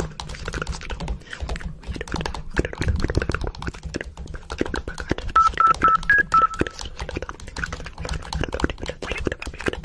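Mobile phone keypad beeps, five short tones in quick succession about halfway through, over a dense run of clicks and taps like buttons being pressed.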